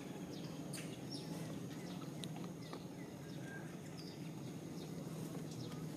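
Outdoor animal ambience: short high chirps and ticks, scattered irregularly, over a steady low hum.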